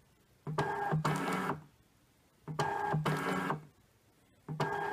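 Zebra GK420T thermal transfer label printer printing and feeding test labels three times, each run a little over a second of steady motor whine, repeating about every two seconds. The printer is in print-width adjustment mode, printing a square on each label.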